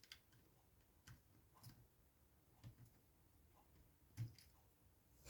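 Near silence broken by about six faint, uneven clicks and ticks of small tools on the iPhone's tiny screws and internal metal plate.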